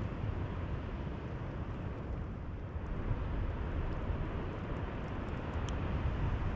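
Steady low rumble and hiss of wind and sea on an exposed cliff top, with a few faint ticks about four to six seconds in.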